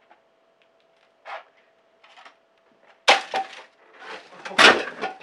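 A wicker basket holding a plant topples off the top of a wooden bookcase and crashes to the floor. There is a sharp knock about three seconds in, then a heavier crash about a second and a half later.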